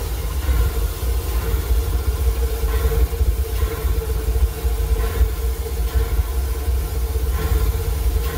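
Steam locomotive cab sound: a steady low rumble with a constant mid-pitched hum from the working engine's boiler and machinery.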